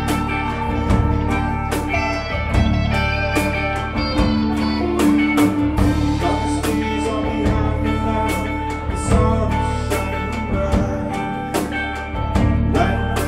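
Live alt-country rock band playing: electric and acoustic guitars over bass guitar and a drum kit keeping a steady beat.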